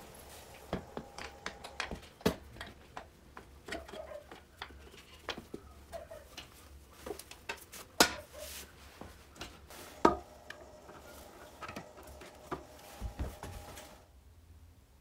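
Handling clicks and metal knocks as a moped seat is set onto its frame socket and bolted down, with sharp knocks about two, eight and ten seconds in. The clicking stops about a second before the end.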